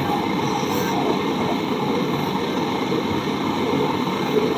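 Handheld gas torch burning with a steady, unbroken hiss while its flame heats the copper pipe joints on an air-conditioner compressor.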